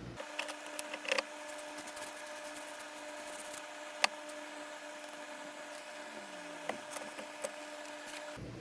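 Small clicks and light taps from handling a briar pipe and cleaning tools, the sharpest about four seconds in, over a faint steady hum.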